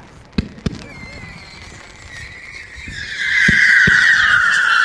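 Fireworks going off: two sharp bangs about half a second in, then a whistling firework's shrill whistle that swells to its loudest from about three seconds in and slowly falls in pitch, with two low thumps beneath it near the end.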